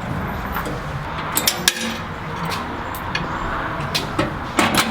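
Irregular metallic clinks and knocks of tools and fittings being handled while a unit is mounted in a van, with a sharp double knock near the end, over a steady background noise.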